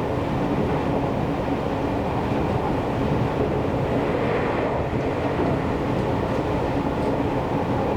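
Seibu Railway electric commuter train running at speed between stations, heard from inside the car: a steady rumble of wheels on rail and running gear, with a faint steady hum.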